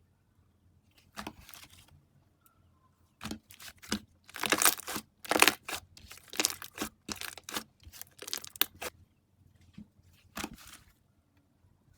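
Slime being played with, making short bursts of crackling and popping. The bursts come thickest and loudest in the middle, with a few single bursts before and after.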